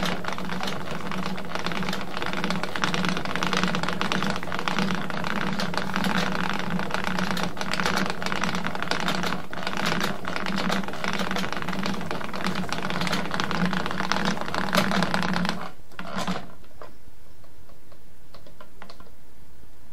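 19th-century wooden treadle spinning wheel running as wool is spun: a dense, rapid clatter over a steady pulsing hum. It stops about three-quarters of the way in, leaving only a few faint ticks.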